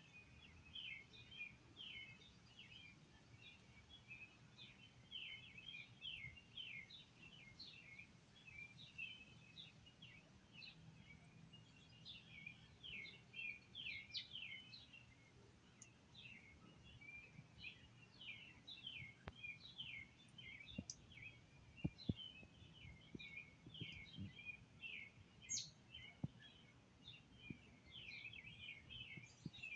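Small birds chirping, a continuous chatter of short, quick high chirps over faint outdoor background noise, with a couple of sharp ticks about two-thirds of the way through.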